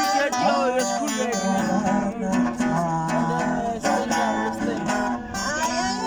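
Music led by an acoustic guitar, with strummed and plucked chords under a bending melodic line.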